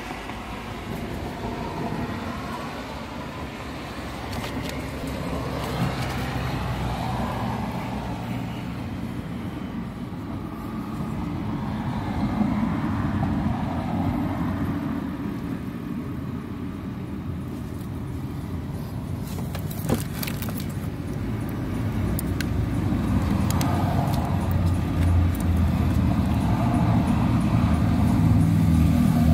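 A car engine running steadily, a low hum that grows louder near the end.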